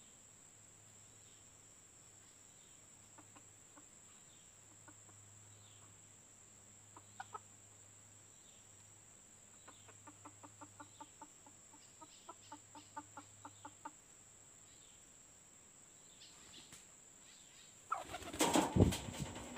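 Red junglefowl (white-eared variety) call recording: mostly quiet, with soft quick clucks in short runs of about five a second through the middle. Near the end comes a loud burst of wing flapping from a junglefowl rooster, which beats its wings this way before it crows. A thin steady high tone runs underneath.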